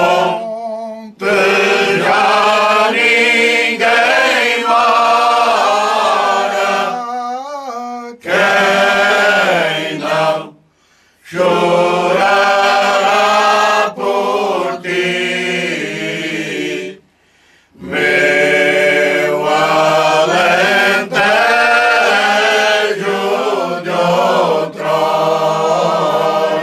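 Men's choir singing cante alentejano unaccompanied, in slow, long-held phrases, broken twice by short pauses.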